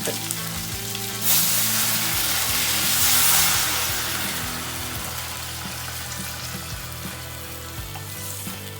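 Food frying in a hot pan. The sizzle jumps up sharply about a second in, peaks, then settles to a steady sizzle, with background music underneath.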